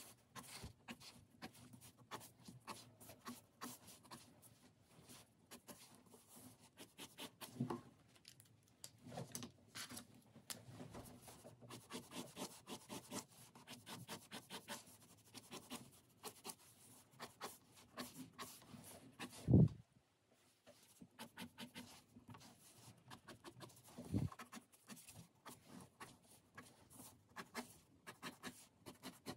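Fine-tip drawing pen scratching across paper in a fast run of short hatching strokes. A dull thump sounds about two-thirds of the way through, the loudest thing here, and a second one a few seconds later.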